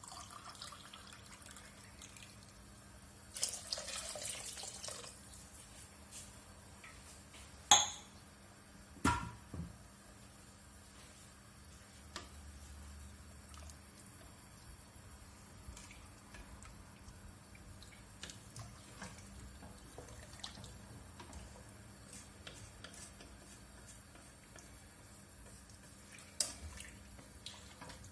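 Kitchen work sounds: a short splash of water about three seconds in, then two sharp clinks with a ringing tail, the first the loudest, and scattered small taps and drips.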